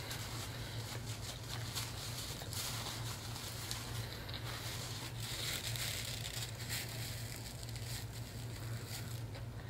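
Close-miked chewing of a catfish sandwich: soft wet mouth sounds and small crackly clicks, with a paper napkin rustling, over a steady low hum.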